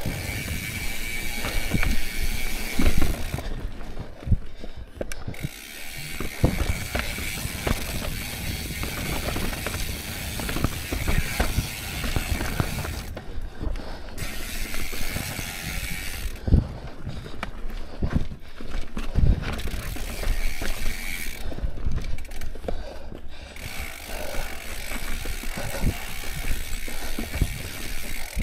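Mountain bike's rear freehub ticking in a fast buzz while it coasts, stopping in four short spells when the rider pedals. Under it, the bike knocks and rattles as it rolls over rocky dirt trail.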